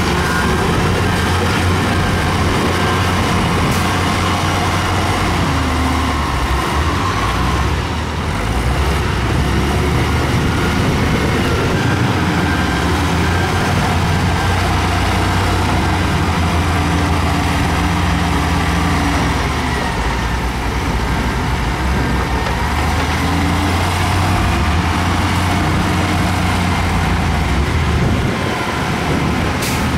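Diesel engines of heavy earthmoving machines, a bulldozer and excavators, running steadily as they work. The engine note rises and falls several times as the load changes.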